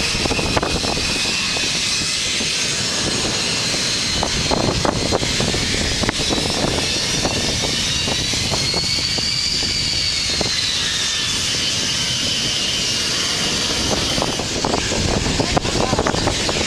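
Aero L-39 Albatross jet trainers' AI-25TL turbofan engines running on the runway: a steady loud jet whine and rush. About eight to ten seconds in, the high whine bends up in pitch and back down.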